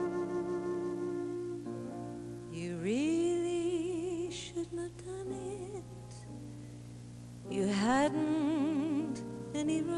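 Female vocalist singing to orchestral accompaniment: steady held backing notes, with two sung phrases, about three seconds in and again near the end, each sliding up into a long note with vibrato.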